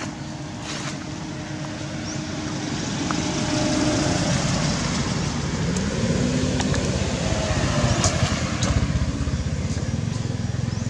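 Motor vehicle engine running, growing louder over the first few seconds and then holding, with a brief rise and fall in pitch around the middle.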